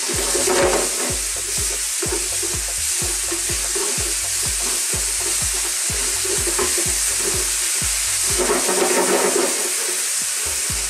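Cream sizzling in a hot grill pan on fairly high heat as a wooden spatula stirs and scrapes it around, with louder scraping strokes about a second in and again near the end. A steady low beat of background music runs underneath.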